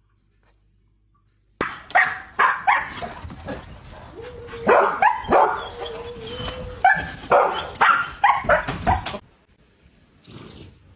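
A dog barking and yelping in a rapid series of short barks, with one longer whine-like held note in the middle, starting about a second and a half in and stopping abruptly near the end.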